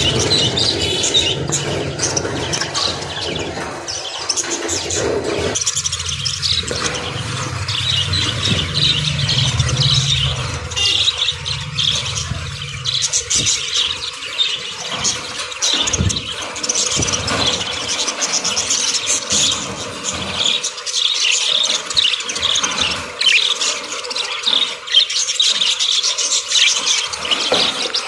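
A flock of budgerigars chirping and chattering, with many high calls overlapping all the way through. A low hum lies underneath for the first five seconds or so, then stops.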